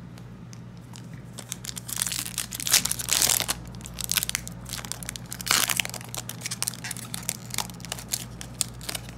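Yu-Gi-Oh! booster pack wrapper being torn open and crinkled by hand: dense crackling, loudest about two to three and a half seconds in and again around five and a half seconds, with lighter crinkles between.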